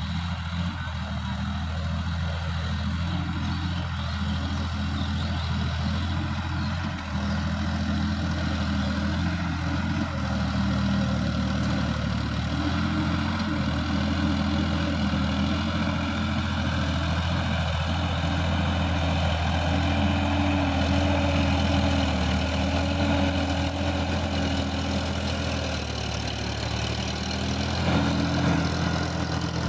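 Sonalika DI-50 RX tractor's diesel engine running steadily while it pulls a rotary tiller through dry soil, getting a little louder near the end as the tractor comes closer.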